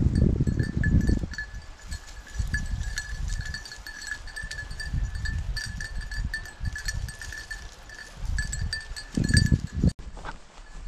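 Small bell on a bird dog's collar jingling in quick, irregular rings as the dog moves through brush. Low rumbles and thumps come and go, loudest at the start and again about nine seconds in.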